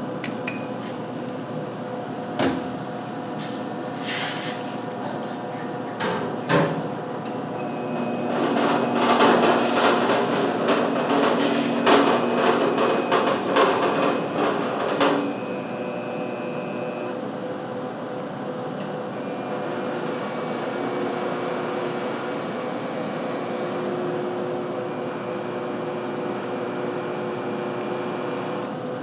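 TDR 15 gantry robot of a Branson ultrasonic cleaning line running a pre-programmed cycle over a steady machine hum. Two sharp clicks come in the first seven seconds, then a louder crackling, clattering stretch of about seven seconds in the middle, after which the hum settles again.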